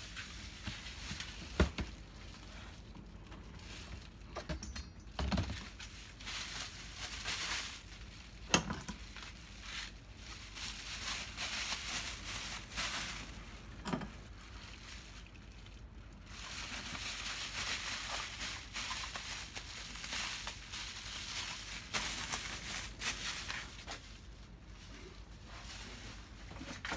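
Bubble wrap and plastic packaging crinkling and rustling as parts are handled and packed into a cardboard box, with a few sharp knocks of parts against the box, the loudest about a second and a half in and again about eight and a half seconds in.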